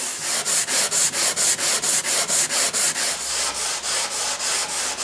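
Hand sanding an oak-veneered top with sandpaper on a block: quick, even back-and-forth strokes, about four a second.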